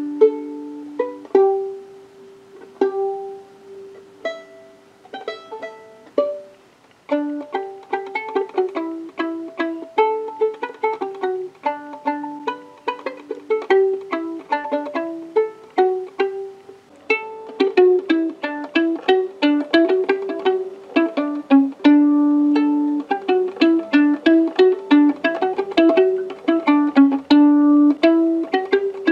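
Violin played pizzicato, its strings plucked by finger with no bow, picking out Christmas carol melodies note by note. Each plucked note starts sharply and fades; the tune is slow and sparse at first, then the notes come quicker from about seven seconds in and quicker again later.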